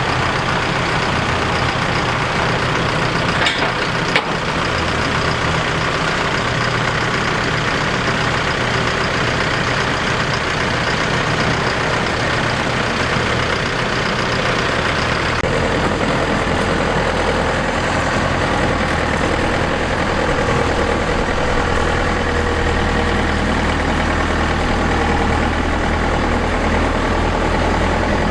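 Combine harvester engine running steadily, its low drone changing abruptly about 15 seconds in, with a short knock about 4 seconds in.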